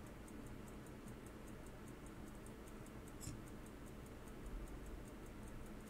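Hamilton Lancaster 17-jewel pocket watch movement ticking faintly with quick, even beats, its balance just fitted and running on only a light wind.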